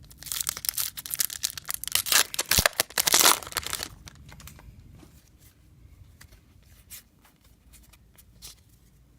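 A trading card pack's wrapper being torn open in a run of loud crinkling rips, loudest about three seconds in. After about four seconds come quieter scattered clicks and rustles as the cards are handled.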